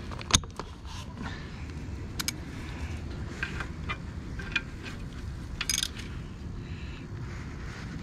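Ratchet wrench and socket clicking and clinking as the oily drain plug with its filter screen is turned back into the bottom of a motorcycle engine: scattered small metal clicks, with a brief cluster about two seconds in and another near six seconds.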